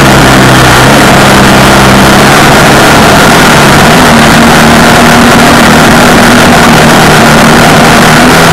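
Off-road vehicle engine running, its speed rising about four seconds in and easing back near the end, under a constant rush of noise; the recording is overloaded at full level.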